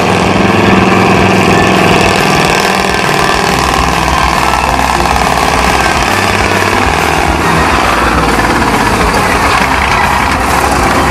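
Heavy trial truck's diesel engine running loud and steady as the truck crawls over rough ground and drives close past, with a hard, rattling rumble.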